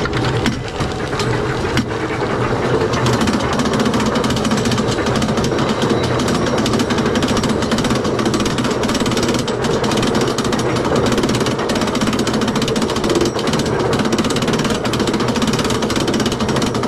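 Wooden roller coaster train being hauled up a chain lift hill: a loud, steady, rapid mechanical clatter from the lift chain and track under the car.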